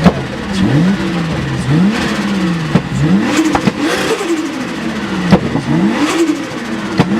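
Turbocharged car engine revved again and again, its pitch climbing and falling back about once a second, with short sharp bursts between some of the revs.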